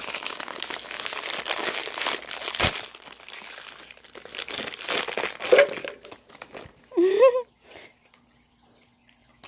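Plastic blind-bag wrappers crinkling and tearing as they are squeezed and pulled open by hand. There is one sharp crack a little under three seconds in, and the crinkling stops about six seconds in.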